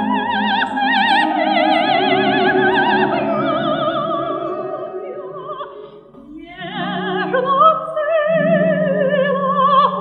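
A soprano singing a Russian folk song with wide vibrato, accompanied by an orchestra of Russian folk instruments. The sound thins out briefly about six seconds in, then sustained sung notes return over the orchestra.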